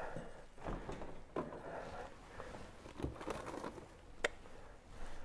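Refrigerator door opened and a plastic-wrapped plate taken out: soft rustling and handling noises with a few light clicks and knocks, the sharpest click a little after four seconds in.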